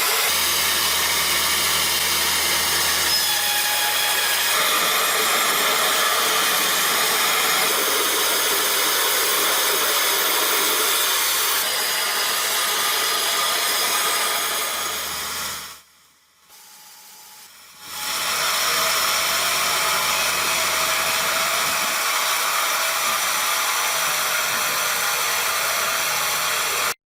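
Steady mechanical noise from a running machine. It drops away for about two seconds past the middle, then resumes.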